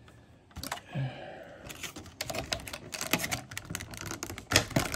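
Rigid clear plastic packaging clicking and crackling as a card in its plastic holder is worked loose from a plastic blister tray. The clicks are quick and irregular, starting about half a second in and getting denser from about two seconds in.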